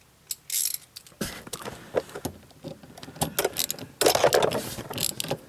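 Irregular metallic clicks and scraping of a hand tool turning a Torx screw on a short-shifter mount, with a denser stretch of clatter about four seconds in.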